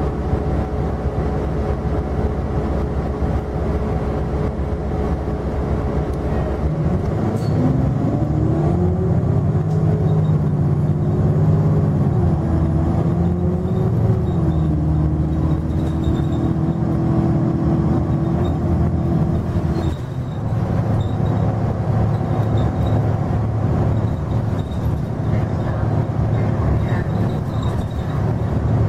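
Nova LFS city bus's Cummins ISL9 inline-six diesel and Allison B400R automatic transmission, heard from inside the cabin. The bus idles, then about seven seconds in it pulls away with a rising whine that steps back down at each upshift. The whine holds steady until it cuts off about twenty seconds in, as the throttle is lifted.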